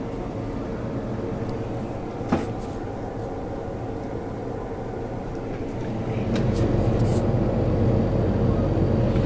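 A low, steady droning hum coming from the sky, made of several steady tones, that grows louder about six seconds in. A single sharp click sounds about two seconds in.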